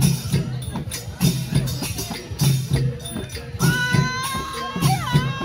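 Dance music with a steady low drum beat and jingling, tambourine-like percussion; about two-thirds of the way in, a long held high note comes in and dips briefly near the end.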